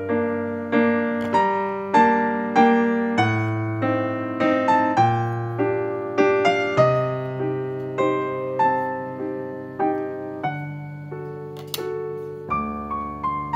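Background keyboard music: a gentle piano melody over held chords, each note struck and then fading.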